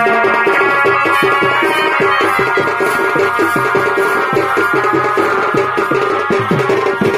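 Live Chhau dance music: quick, steady drumming on folk drums under a held melody from a reed pipe.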